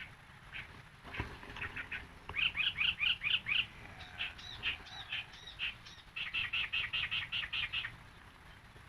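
Yellow-vented bulbul (trucukan) singing: three or four phrases of quick, repeated chattering notes, the busiest runs about two and a half seconds in and again about six seconds in.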